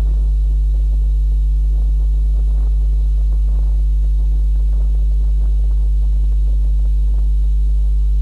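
Loud steady electrical mains hum, one low tone with a ladder of overtones, unchanging throughout, with faint indistinct sounds beneath it.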